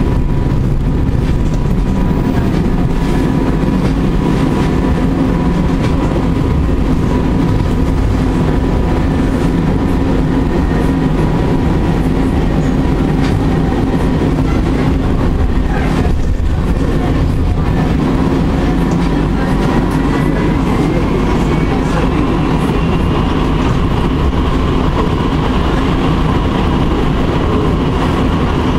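Bombardier Flexity tram heard from inside while riding: a steady low rumble of wheels on rail. About two-thirds of the way through, a high motor whine rises in pitch and then holds.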